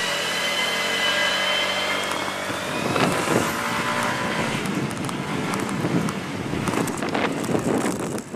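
A Dennis refuse collection truck's diesel engine running close by with a steady hum and a thin high whine that slowly rises, until a sharp knock about three seconds in. After that, irregular footsteps on pavement with street noise.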